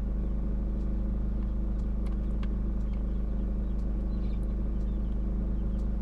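Soldering gun's transformer humming steadily with the trigger held while its tip heats up to solder a heavy XT90 connector, with a few faint ticks.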